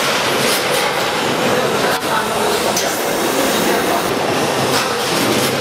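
Automatic vertical vegetable vacuum packing machine running, a loud steady mechanical clatter with no pauses.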